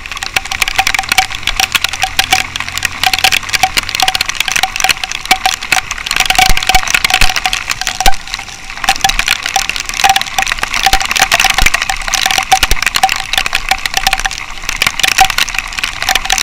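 Raindrops striking the camera housing in a dense, crackling patter of clicks, over the rush of riding wind on the microphone.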